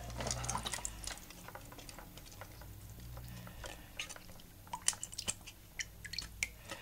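Small clicks, taps and wet handling noises as fingers pick at wet silicone and rubber gasket samples on a stainless steel plate, with a few sharper taps about five seconds in, over a low steady hum.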